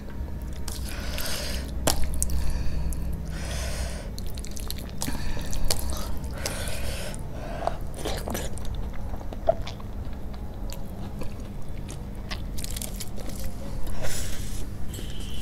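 Close-miked chewing of a mouthful of rice and curry eaten by hand, coming in repeated short bursts.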